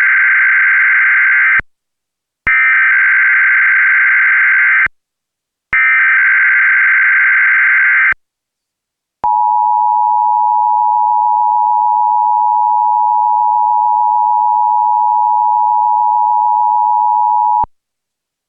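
Emergency Alert System tones for a Required Monthly Test: three harsh, buzzy data bursts of the digital alert header, each about two and a half seconds long with short gaps, then the steady two-tone attention signal held for about eight seconds before it cuts off.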